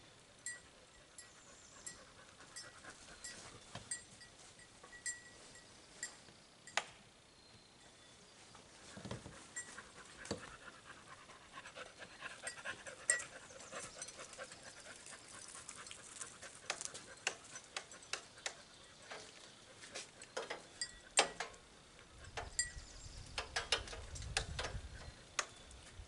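A dog panting, among scattered light clicks and knocks and footsteps on gravel.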